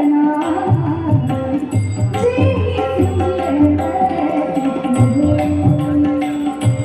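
Live Marathi devotional song: a woman singing in long, gliding held notes, with tabla drumming underneath.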